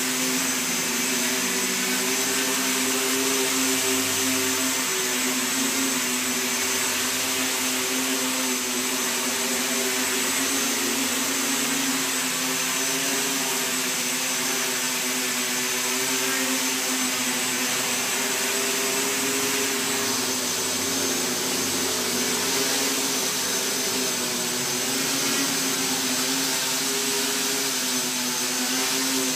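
SK450 quadcopter hovering, its four motors and propellers giving a steady buzzing hum whose pitch wavers slightly as the pilot makes small corrections.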